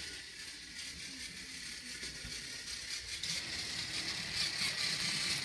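Battery-powered Tomy toy train whirring and rattling as it runs along plastic track, getting louder about three seconds in.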